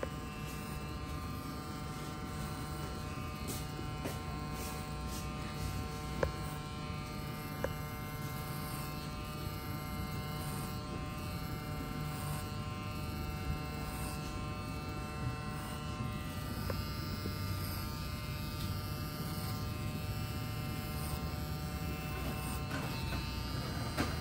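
Electric hair clippers running with a steady buzz while cutting hair, with a few light clicks.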